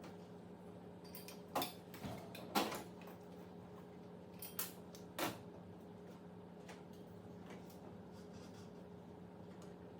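A handful of sharp clicks and knocks from tools and parts being handled during work on a range cooktop, the loudest two about a second and a half to two and a half seconds in, over a steady low hum.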